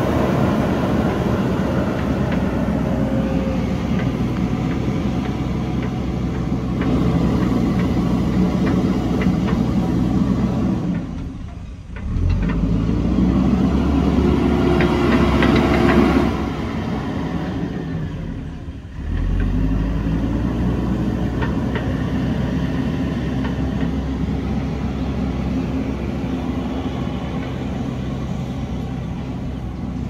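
JCB 3DX backhoe loader's diesel engine running steadily under load as the machine pushes and levels soil, with two brief dips in level about twelve and nineteen seconds in.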